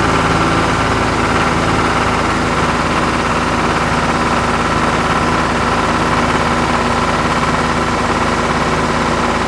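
A tractor engine running steadily, one continuous engine note with an even, rapid firing pulse.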